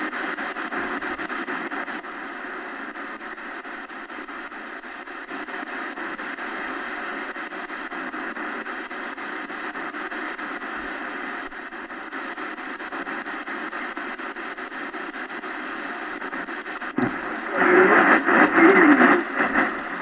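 Steady shortwave static hiss from a portable radio's speaker while tuning between stations. About 17 seconds in there is a sharp click, and a louder station comes in with a fluctuating voice.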